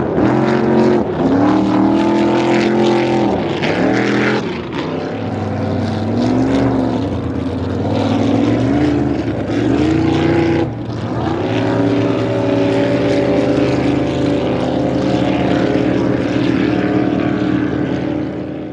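V-drive boat's inboard engine running loud, its revs dropping and climbing again several times in the first half before holding steady.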